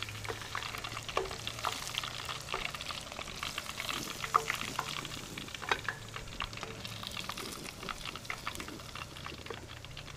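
Breaded catfish pieces deep-frying in hot oil in a pot: a steady crackling sizzle with frequent small pops, over a low steady hum.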